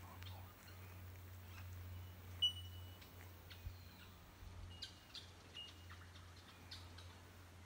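Quiet rural ambience with birds calling: scattered short high chirps, the loudest a brief sharp call about two and a half seconds in, over a faint steady low hum.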